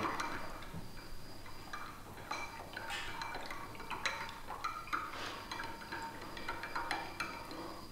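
A utensil stirring liquid in a small glass, with light, irregular clinks and taps against the glass. Silver chloride is being stirred into a Gold Max solution to dissolve it.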